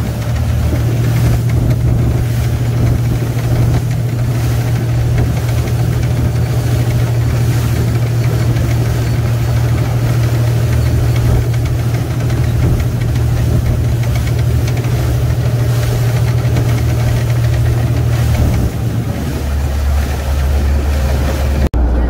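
Fishing boat's engine running steadily with a low drone heard on board; about nineteen seconds in its note drops lower.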